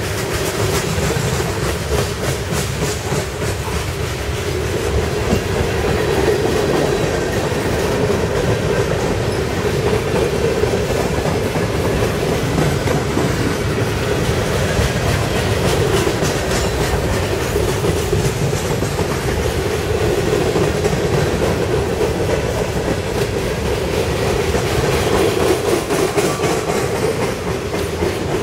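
Freight cars rolling past at speed: a steady rumble of steel wheels on the rails with a continuous clickety-clack of wheels over rail joints.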